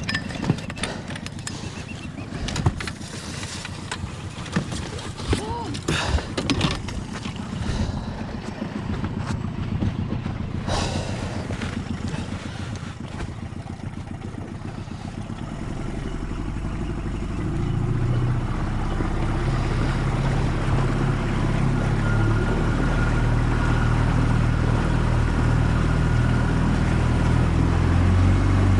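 Scattered knocks and clatter, then a motor engine running steadily, coming in about halfway and growing louder toward the end.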